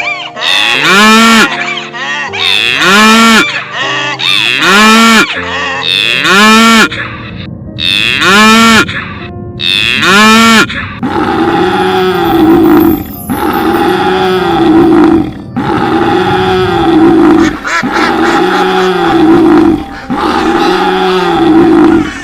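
Repeated animal calls, about one every one and a half to two seconds, each rising then falling in pitch. Around halfway through, a different, deeper call takes over in the same rhythm.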